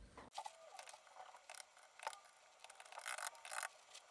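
Keycaps being handled and fitted on a mechanical keyboard: faint, irregular small plastic clicks and scrapes, with a denser cluster about three seconds in.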